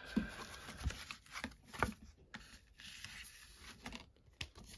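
Flat cardboard mailer being torn open and handled, rustling and tearing with a few sharp clicks.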